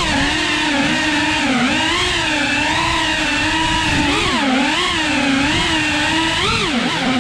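FPV drone's electric motors and propellers whining steadily, the pitch rising and falling as the throttle changes.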